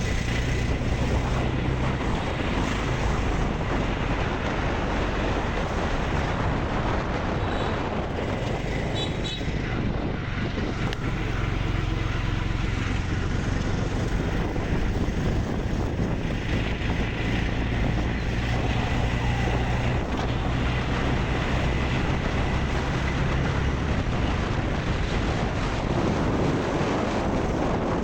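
Steady engine hum and road noise of a moving vehicle, with some wind buffeting the microphone.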